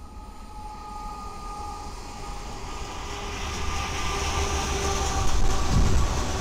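A train approaching on the rails, its low rumble and rail noise growing steadily louder, with a few faint steady tones over it.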